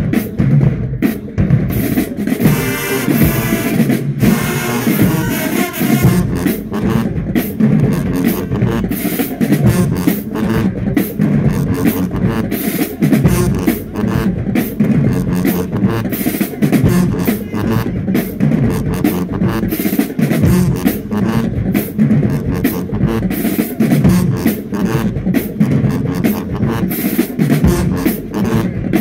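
Marching band drumline playing a fast, driving cadence, dense snare strikes over heavy bass drum beats.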